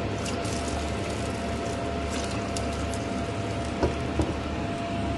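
Steady hum with a thin high whine from a glass-top electric hob running on high heat under a saucepan of rice and water, with a couple of faint clicks about four seconds in.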